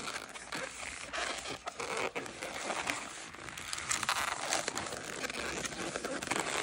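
Inflated latex modelling balloon being twisted and squeezed by hand: a continuous crackling rub and creak of the rubber as the bubbles are turned.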